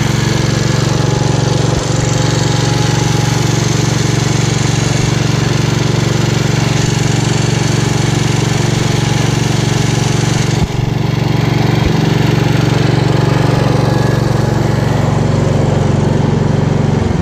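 Gravely 432 garden tractor's Kohler engine running steadily on its own with the battery charger unhooked, its newly wired stator charging the system. There is a brief dip in the sound about ten and a half seconds in.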